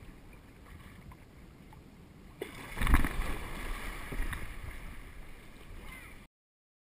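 Water lapping under a paddled kayak, then about two and a half seconds in a sudden heavy splash and churning surge as a large animal, a manatee, thrashes up at the surface right beside the kayak, nearly tipping it over. The water noise cuts off suddenly near the end.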